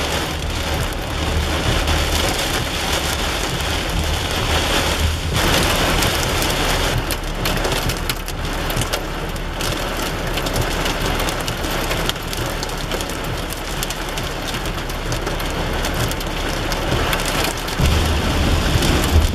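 Torrential rain drumming on a car's roof and windshield, heard from inside the car as a loud, steady hiss.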